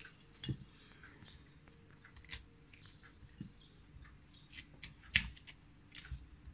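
A knife cutting florets off a raw cauliflower head: faint, scattered crisp snaps and clicks, the loudest about five seconds in.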